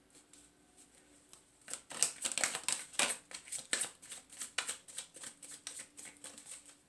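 A deck of tarot cards being shuffled by hand: a quick, irregular run of papery flicks and taps that starts about two seconds in and goes on almost to the end.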